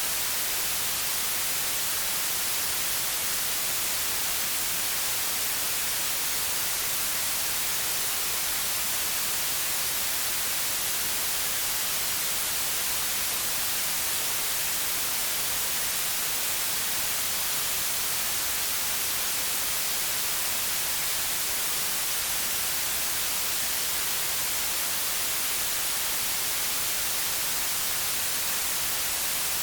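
Generated white noise: a steady, unchanging hiss, brightest in the high end, with no events or variation.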